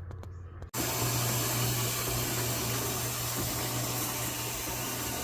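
Whirlpool top-load washing machine running, a steady low motor hum under a loud rushing wash noise. It comes in suddenly about a second in, after a quieter hum with a few clicks.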